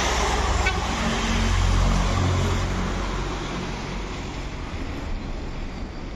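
A car passing close by, its engine and tyre noise swelling to a peak about two seconds in and then fading, over the steady hum of road traffic.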